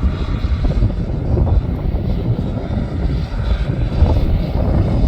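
John Deere articulated dump truck's diesel engine running as the truck drives, a steady low rumble.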